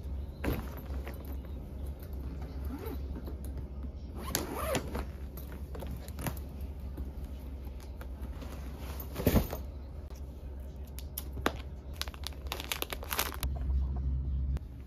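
Hard-shell suitcase being handled and packed: scattered rustling, crinkling and light clicks, with one louder thump about nine seconds in, over a steady low hum.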